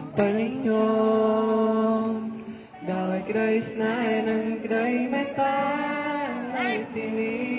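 A man singing a slow song through a microphone, holding long notes with short breaks between phrases and little or no instrumental backing.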